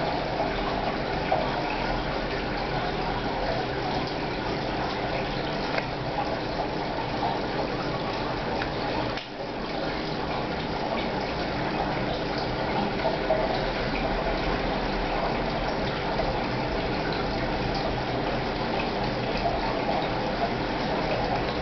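Aquarium filter and pump circulating water: a steady rush of splashing and bubbling water with a faint pump hum beneath, briefly dipping about nine seconds in.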